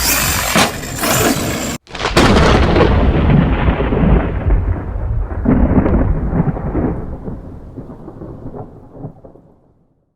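A thunder crack about two seconds in, rolling and fading away over about eight seconds. Before it, a loud dense noise cuts off abruptly.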